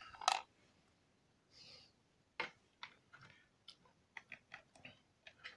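Faint, irregular small clicks and taps from hands handling a small plastic TV box, its cables and a SIM eject pin.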